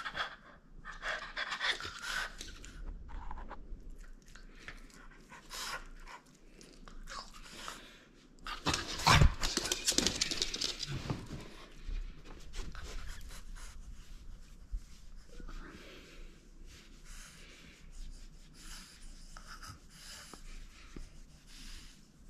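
French bulldog panting heavily in quick, noisy breaths while it mouths a rubber ring toy, with a louder thump and scuffle about nine seconds in.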